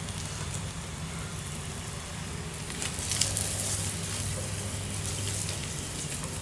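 Ghee-brushed arbi (taro) paratha frying on a hot tawa, sizzling steadily, with a brighter crackling spell about three to four seconds in. A steady low hum runs underneath.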